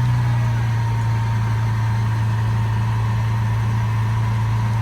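Lamborghini Aventador SV's V12 engine idling steadily at an even, low pitch.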